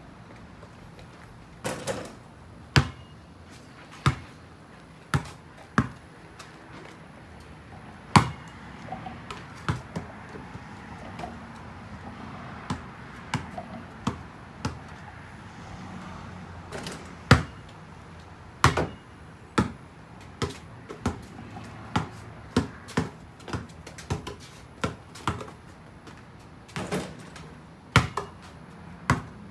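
Irregular sharp taps of water drops falling onto a hard surface, over a faint steady hiss; the taps come more often in the second half.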